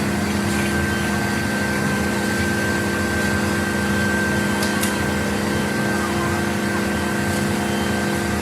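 Machine tool running steadily in a metalworking shop: an even motor hum with a constant thin whine above it and a few faint ticks.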